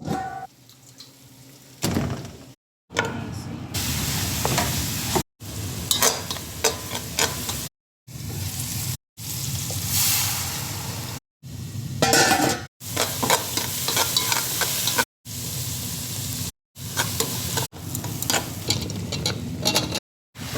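Food sizzling and frying in a pan while it is stirred, with light scrapes and clicks of a utensil. It comes in a series of short clips, each cut off abruptly by a brief silence.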